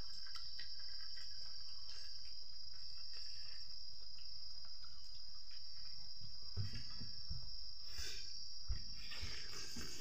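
Crickets chirring in one steady high-pitched drone. From about six and a half seconds in come soft clicks, smacks and low thumps of eating rice and curry by hand from a metal bowl.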